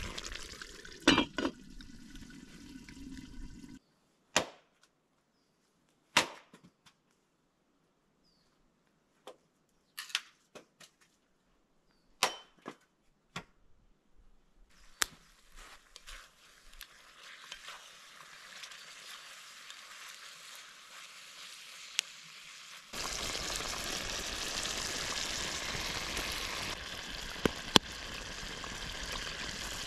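Food sizzling in a cauldron, with a few sharp clinks separated by stretches of near silence; later a steady sizzling hiss sets in and grows louder.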